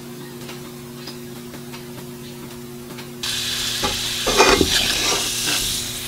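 A steady low electric hum from the cooktop, then about three seconds in, cooking oil starts sizzling in the hot nonstick pan. A spoon scrapes and stirs across the pan as the oil spreads.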